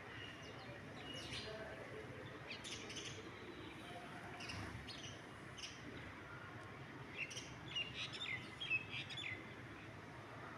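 Birds chirping: short, high calls scattered over a steady background hiss, coming thickest and loudest a few seconds before the end.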